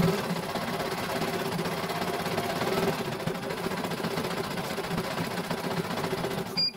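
CNY E900 computerized embroidery machine stitching, a dense steady mechanical clatter of the needle and hoop drive. Near the end it stops abruptly and gives a short high beep, an alert that the owner calls the sign of something gone slack.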